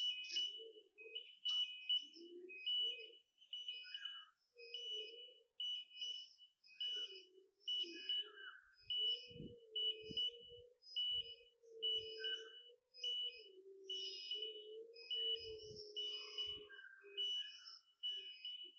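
A high-pitched beep repeating about twice a second. In the middle stretch a fainter low hum wavers underneath, with a few low thuds.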